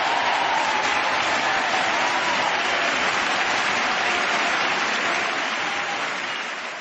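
Crowd applauding, a dense steady clapping that fades away near the end.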